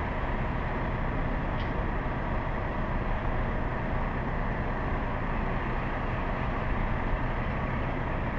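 Steady low rumble of distant idling trucks and traffic, with no distinct events.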